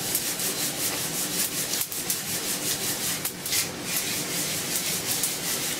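Brazil coffee beans swishing and rattling inside a lidded mesh pan roaster that is shaken back and forth over a gas burner in a quick, steady rhythm. The beans are roasted dark, past French roast and near the end of second crack.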